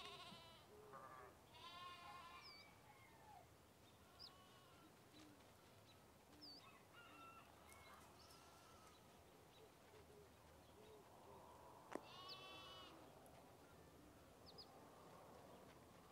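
Livestock bleating a few times, the clearest calls about two seconds in and again about twelve seconds in, with a few short high chirps between and one sharp click just before the last bleat.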